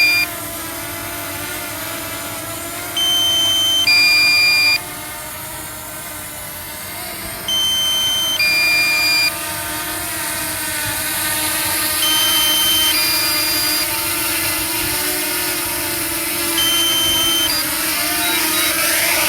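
DJI Mini 2 SE quadcopter's propellers humming steadily as it comes down to land, with a two-note electronic warning beep (a higher note, then a lower one) repeating about every four and a half seconds: the drone controller's low-battery alarm. Near the end the beeps change to a quicker run of short beeps as the battery reaches critically low.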